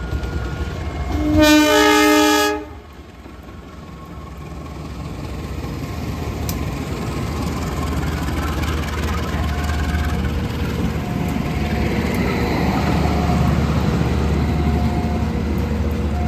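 Train horn sounding one blast of about a second and a half, several tones sounding together as a chord. Then the low rumble of the train's wheels on the rails builds up and carries on.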